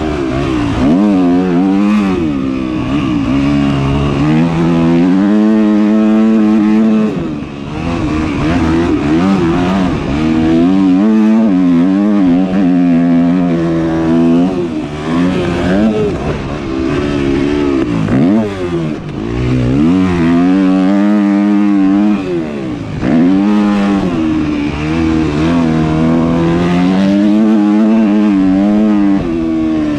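Yamaha motocross bike's engine being ridden hard around a dirt track, its pitch climbing and falling over and over as the throttle is opened and rolled off. There are brief dips where the throttle is chopped, about a third of the way in and twice more past the middle.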